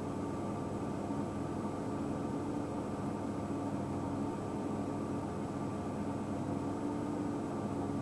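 A steady, unchanging mechanical hum over a low hiss.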